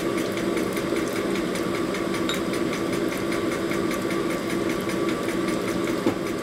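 Motor-driven hone running steadily while a rocker-arm pin bore is stroked back and forth on its spindle, with faint regular ticking over the hum.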